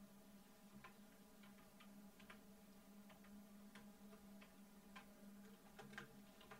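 Faint computer keyboard keys pressed one at a time at an uneven pace, a dozen or so soft clicks, over a steady low hum of room tone.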